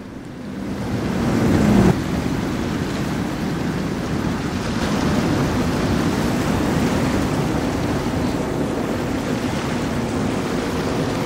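A steady rushing noise that swells over the first two seconds, breaks off abruptly, then carries on evenly.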